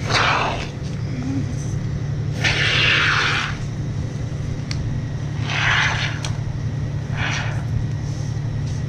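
Aerosol can of gaps-and-cracks expanding spray foam hissing as it is dispensed through its straw nozzle, in four short spurts of a second or less. A steady low hum runs underneath.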